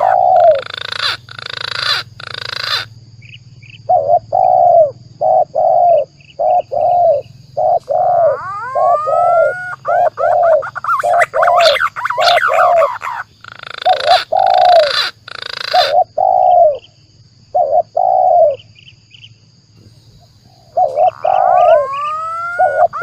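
Bird-lure recording mixing the cooing of spotted doves (tekukur), repeated short low notes, with the rising whistled calls of green pigeons (punai) about eight seconds in and again near the end. Two stretches of harsher, hissing calls break in near the start and about two-thirds of the way through.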